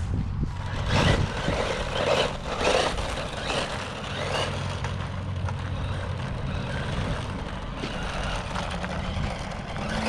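Tamiya Sand Scorcher RC buggy with a stock 540 brushed motor driving and sliding on gravel: its paddle tyres scrabble and spray gravel in several short rushes during the first half, then run on more evenly, over a steady low hum.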